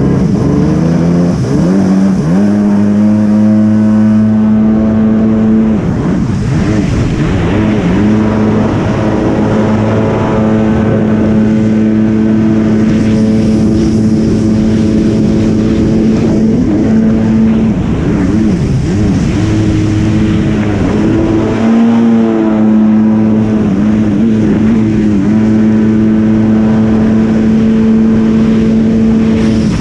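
Jet ski engine running hard at high revs, its pitch dipping as the throttle comes off and climbing back several times, over wind and water rush.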